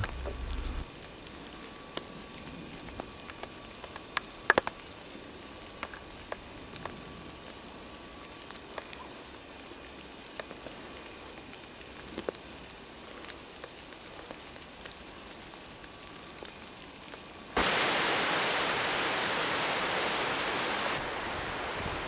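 Faint steady background hiss with scattered soft clicks. About three-quarters of the way through, a louder even rushing noise starts suddenly and runs on.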